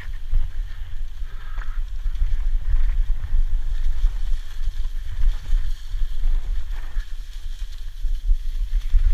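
Downhill mountain bike descending fast over a dirt and leaf-litter forest trail: heavy wind buffeting on the action camera's microphone makes a constant low rumble, with tyre noise and a few knocks and rattles from the bike over bumps.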